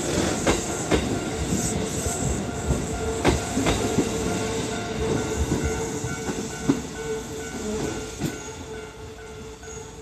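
Kintetsu 8810 series electric train passing and pulling away, its wheels clacking over rail joints during the first few seconds, the running sound then fading as it recedes.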